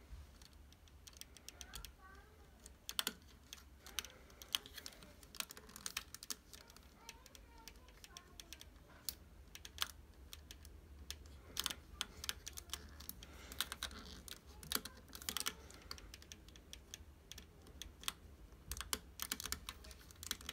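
Hard plastic pieces of a 3D crystal puzzle clicking and scraping against each other as they are pushed into place, in irregular runs of small sharp clicks.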